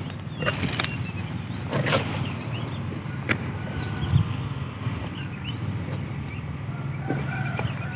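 A metal hoe blade striking and scraping into dry, packed soil, a few sharp knocks in the first three or four seconds, over a steady low rumble.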